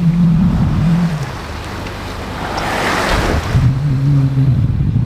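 A steady low hum drops out for about two seconds in the middle, where a rushing wash of noise like a passing wave swells and fades.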